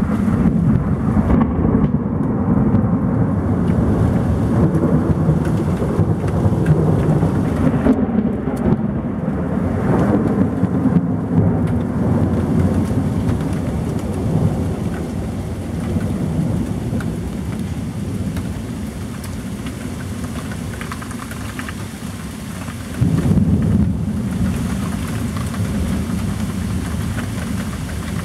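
Thunderstorm: thunder rumbling continuously over heavy rain. The rumble eases off, then a fresh loud peal breaks in suddenly near the end.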